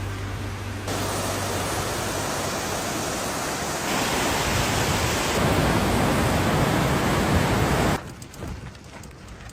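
Loud, steady rushing of wind on the microphone, growing louder in steps about a second in and again about four seconds in, then cutting off abruptly near the end.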